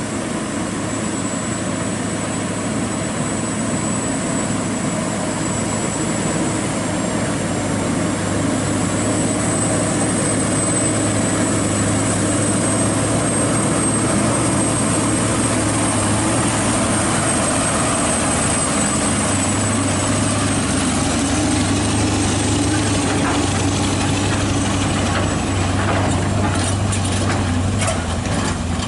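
Scania R580 V8 truck engine running steadily at low revs under load as the tractor unit crawls along a gravel road pulling a low-loader carrying an excavator. A few clatters come near the end.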